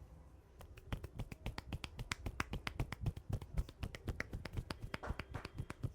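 Hair-cracking head massage: a rapid run of sharp cracks and snaps made by the masseur's hands working the hair and scalp, starting about half a second in and going on steadily.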